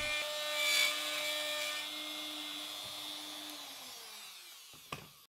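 DeWalt plunge router spinning down after routing a mortise: its steady whine fades and slowly drops in pitch, with a short knock near the end.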